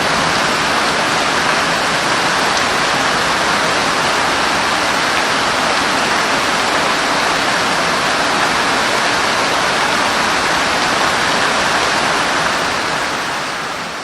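Steady heavy rain, a dense even hiss, fading out near the end.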